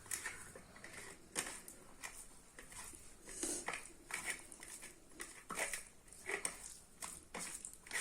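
Close-up eating sounds: chewing and mouth noises from a man eating chicken curry and rice, with scattered irregular clicks and short crunches.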